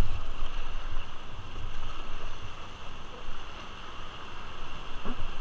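Rushing whitewater of a river rapid around an inflatable raft, a steady hiss with wind buffeting the microphone in uneven low rumbles.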